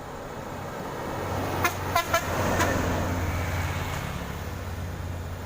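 A truck's engine drones, growing louder and then fading as it goes by. About a second and a half in, its horn gives four quick short toots.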